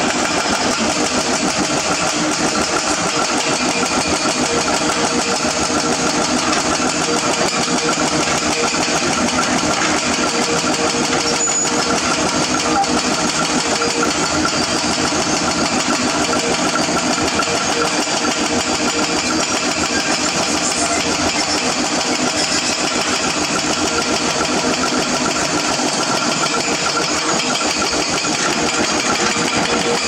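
Diesel engines of hydraulic excavators running steadily under load while digging broken rock.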